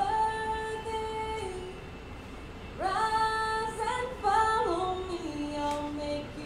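A woman singing long held notes that slide up or down into the next, in a recorded song.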